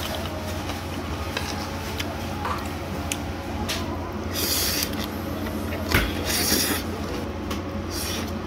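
Eating at a table: a spoon clinking and scraping on a plate, with several short scraping rubs and a louder knock about six seconds in, over a steady low room hum.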